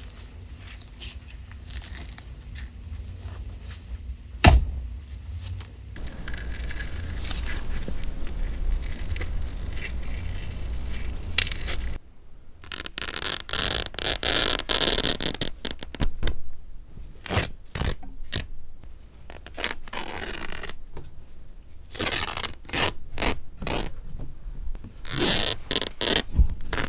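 Knife work for foley sound effects: a sharp knock about four seconds in, then a long rough scrape, followed by a run of stop-start scrapes and short crackling cuts and stabs.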